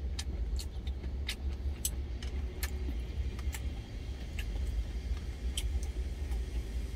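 Steady low rumble of an idling truck engine heard inside the cab, with scattered light clicks of a spoon and chopsticks against a stainless steel lunch container.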